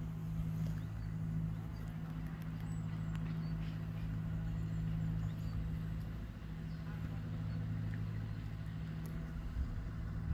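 Steady low hum of a distant engine, holding an even pitch.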